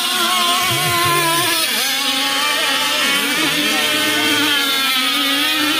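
Radio-controlled racing boats running at full speed. Several motor notes overlap, their pitches shifting as the boats pass.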